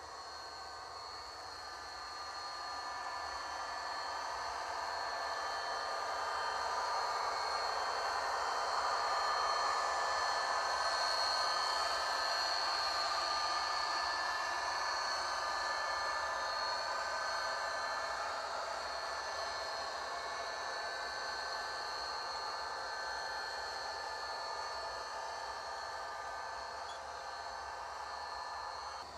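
Model Amtrak F40PH locomotives pulling a passenger train past, a steady running hum and hiss with a few held tones. It swells to its loudest about ten seconds in as the train passes close, then slowly fades.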